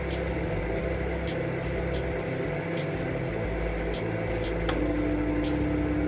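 Microwave oven running: a steady electrical hum with a rumbling low end and a few faint clicks. About three-quarters of the way in, a click comes and a new steady low tone joins the hum.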